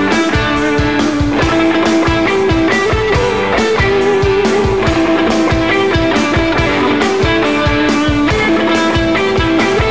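Live rock band playing an instrumental passage: guitar over a drum kit's steady beat.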